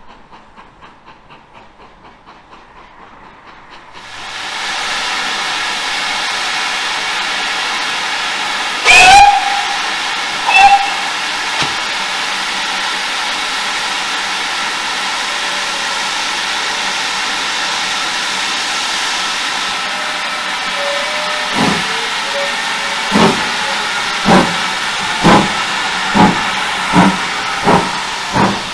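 Steam locomotive close by. A loud steady hiss of steam starts suddenly about four seconds in, and the whistle gives two short blasts near the middle. Near the end the engine starts away, its exhaust beats coming ever closer together, from about one every second and a half to more than one a second.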